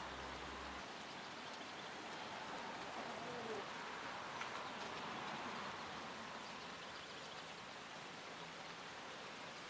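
Steady outdoor background hiss, like light rain or distant running water, with a brief falling bird call about three and a half seconds in and a faint click a second later.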